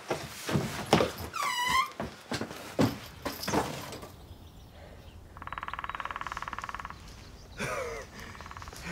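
Knocks and thuds of furniture doors and drawers being handled, with a short falling squeak about a second and a half in. Then a steady electric buzzing ring lasts about a second and a half.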